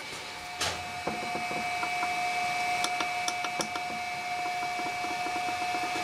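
Three-phase motor from a mid-to-late-1990s Simpson washing machine running on a variable frequency drive. A steady high whine sets in under a second in and holds, with a few light ticks about halfway through.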